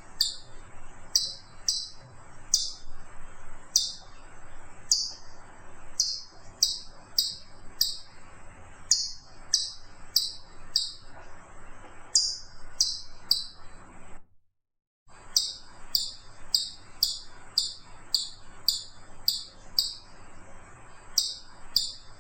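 Chipmunk giving its repetitive chip call: sharp, high chips about twice a second, broken by a brief silence about two-thirds of the way through before the calling resumes.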